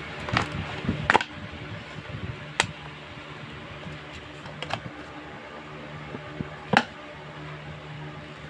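A cardboard box and a small plastic handheld fan being handled and set down, giving scattered clicks and knocks, the sharpest near the end.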